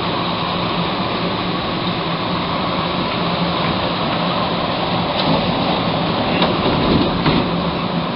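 Interior noise of a moving Montreal Metro MR-63 rubber-tyred train car: a steady running rumble with a low hum, and a few faint clicks in the second half.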